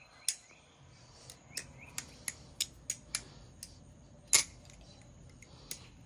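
Balisong (butterfly knife) being flipped in the hand: its handles clack against each other in a string of about ten sharp, irregularly spaced clicks, the loudest about four seconds in.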